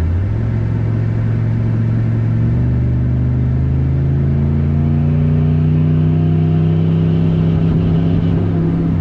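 Turbocharged GMC Sierra pickup engine pulling under acceleration, heard from inside the cab, its pitch climbing steadily for the whole run and dropping sharply near the end.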